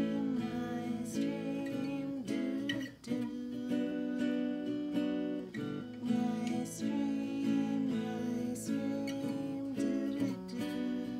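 Crafter acoustic guitar strummed in a steady pattern of chords, with a woman singing over parts of it.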